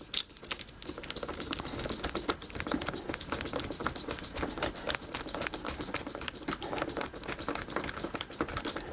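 Wood screw being driven by hand back into a stripped door-hinge screw hole packed with a sliver of bamboo stick, giving a steady run of small quick clicks and creaks as the thread bites into the packing.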